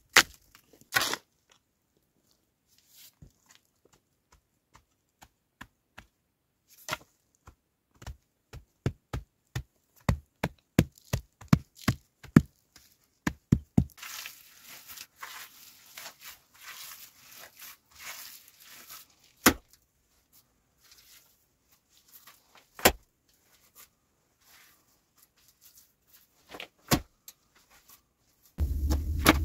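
Hand work with stones and dry earth: a few knocks of stones at the start, then a run of sharp knocks about one or two a second, then loose soil being scraped, then single knocks. Near the end a loud, steady low rumble starts.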